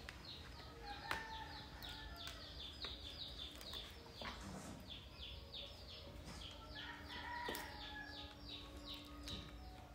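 Faint bird chirping in a rapid, even series of short descending notes, about four a second, with a faint steady hum and a couple of light clicks.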